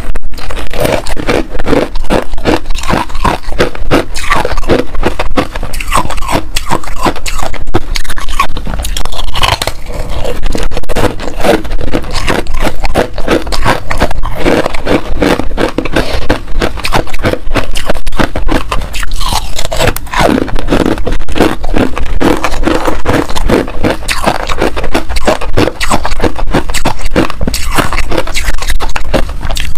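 Close-miked biting and chewing of hard ice chunks coated in pink freezer frost: a dense, continuous run of crisp crunches.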